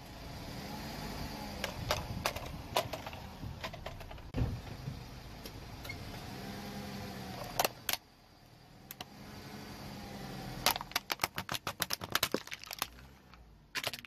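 Car engine running while its tyre rolls over a plastic toy concrete mixer truck, with scattered sharp cracks and snaps as the plastic gives. About eleven seconds in comes a rapid run of cracking and crunching as the toy breaks apart.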